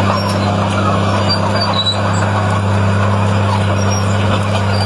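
Komatsu D50 crawler tractor's diesel engine running, loud and steady, with an even low hum that does not change.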